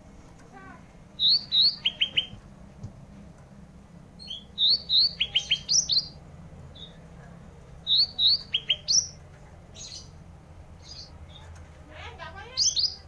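A small songbird, the cage bird kept as 'ranting', singing vigorously in four short bouts of quick up-slurred whistles, each followed by a fast run of sharp, dropping notes. A steady low hum runs underneath.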